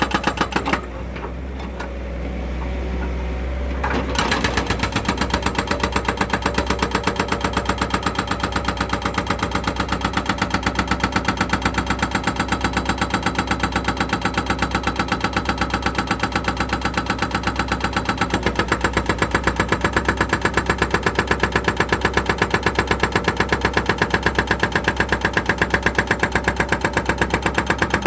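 An engine running steadily with a regular beat of about four pulses a second. About a second in the sound drops and thins, then returns in full about four seconds in.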